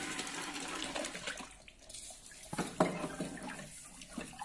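Water sloshing and splashing in an open toilet-cistern tank as hands move plastic fill valves about in it. A couple of light plastic knocks come about two and a half seconds in.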